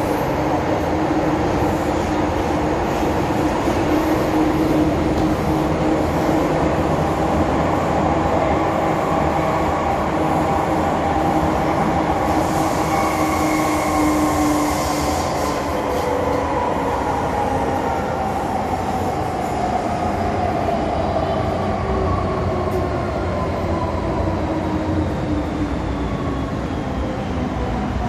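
MTR M-Train electric multiple unit heard from inside the car running through the tunnel: a steady rumble of wheels on rail with a motor whine. In the second half the whine falls steadily in pitch as the train slows for the station, and there is a brief high hiss about halfway through.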